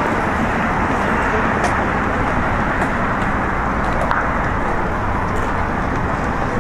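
City street ambience: a steady wash of road traffic noise.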